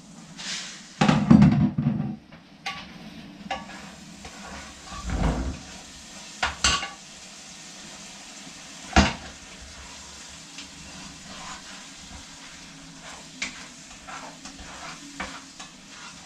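A metal pot lid set down with a loud clatter about a second in, then a utensil stirring and knocking against a pot of beef on the stove, with a steady faint sizzle and a few sharp clinks in between.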